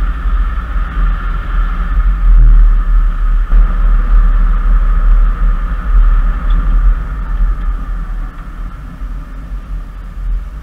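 Car driving, heard from inside the cabin: a steady low rumble of road and engine noise with a hiss of wind and tyre noise above it.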